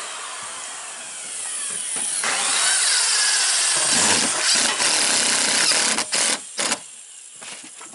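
Cordless drill driving a long exterior deck screw into wood. The motor runs for about seven seconds, getting louder with its pitch falling as the screw bites, then stops shortly before the end.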